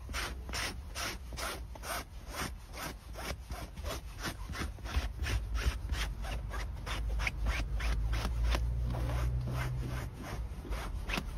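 Fur Viking dual-blade pet hair remover scraped in quick back-and-forth strokes over fabric car seat upholstery, about three to four strokes a second. The blades pull hair stuck in the fabric out and roll it into clumps.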